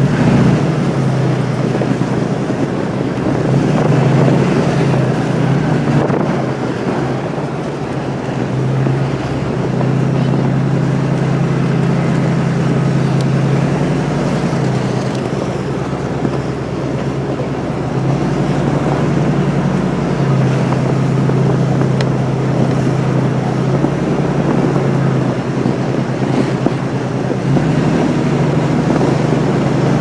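A four-wheel-drive truck driving on a snow-covered logging road: its engine runs steadily, swelling and easing by turns, over the rushing noise of the tyres in the snow. Wind buffets the microphone.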